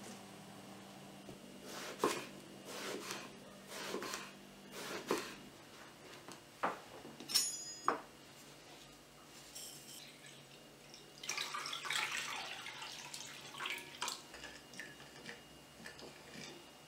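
Kitchen prep handling: eggplant slices set down in a ceramic bowl with several soft knocks. Then a metal lid clinks with a brief ring and a spoon taps a metal salt pot. Water then splashes into a glass bowl and is stirred with a wooden spoon.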